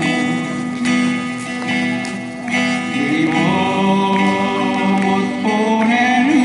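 Acoustic guitar ensemble playing a song through a PA, with a voice singing long held notes over the guitars.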